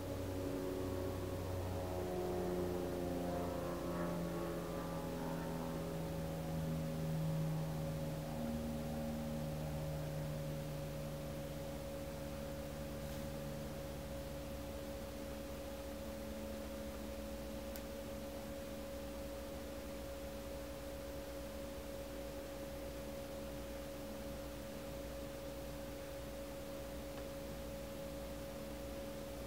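Steady pure-tone drone of a few held notes. Over the first ten seconds a series of slow notes steps down in pitch and fades, leaving the drone alone.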